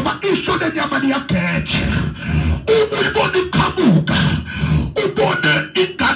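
A man preaching forcefully into a microphone, his voice amplified through a PA loudspeaker in rapid, clipped bursts with hard, percussive consonants.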